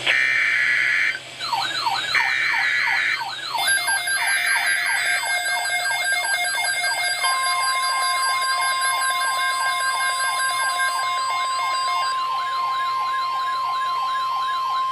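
Emergency Alert System activation on NOAA Weather Radio: three short screeching SAME data bursts, layered from about a second and a half in with a siren that sweeps up about three times a second. About seven seconds in, the steady 1050 Hz weather-radio warning alarm tone starts and holds.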